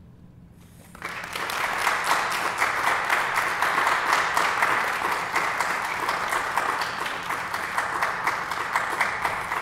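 Audience applauding, starting about a second in and going on steadily as a dense patter of many hands clapping.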